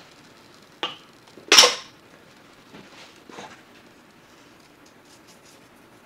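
A click, then one short hissing shake of salt from a shaker over cooked egg noodles, followed by a couple of faint taps.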